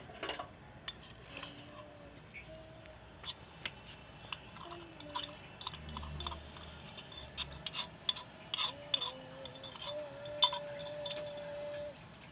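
Metal kitchen utensils clinking and tapping at irregular moments, with a few faint held tones underneath.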